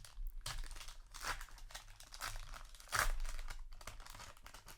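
Booster pack foil wrapper crinkling and tearing in a series of short crackles, the loudest about three seconds in.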